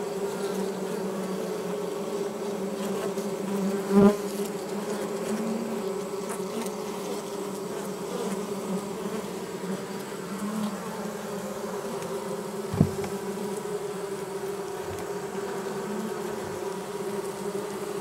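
Steady, dense hum of a honeybee colony heard from inside a top bar hive, many bees buzzing at once as foragers fly in through the entrance holes. Two brief knocks cut through it, one about four seconds in and one near thirteen seconds.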